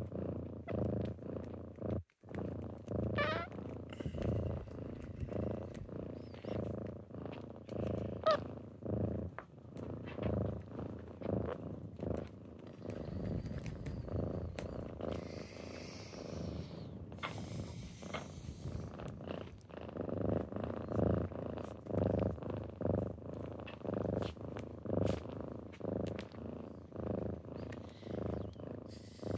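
Kittens purring close by, a low continuous purr that swells and fades in a steady rhythm with each breath.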